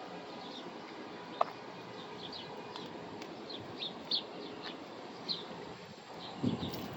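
Small birds chirping, short high chirps repeated every half second or so over steady outdoor background noise.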